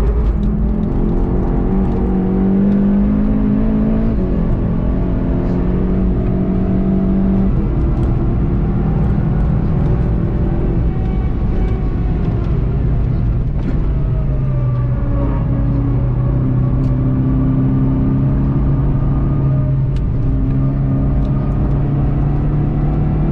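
VW Golf GTI TCR's 2.0-litre turbocharged four-cylinder engine under hard acceleration, heard from inside the cabin. Its pitch climbs, then drops a few times as the driver shifts, over steady road and tyre noise.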